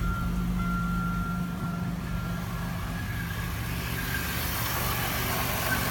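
Supercharged 3800 V6 idling just after start with its supercharger belt on, with a light rattle that the owner says is definitely a bad supercharger bearing. A thin high tone fades out about two seconds in.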